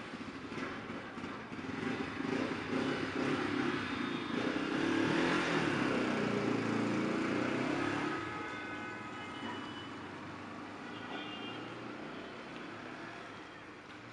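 A motorcycle riding past on a street, its engine getting louder to a peak about five to eight seconds in, then fading as it moves away.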